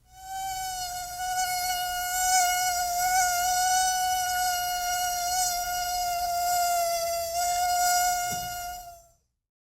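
Mosquito buzzing in flight close to the ear: one steady, high whine with many overtones, wavering slightly in pitch and loudness, fading out about nine seconds in.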